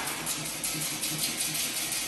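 SVR Spider automatic chain link fence machine running, with a fast, slightly uneven clicking of about four to five strokes a second over a steady mechanical noise, mixed with background music.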